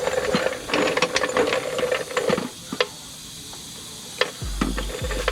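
Hand ratchet clicking rapidly as bolts are run in, then a few separate clicks. A low steady hum starts near the end.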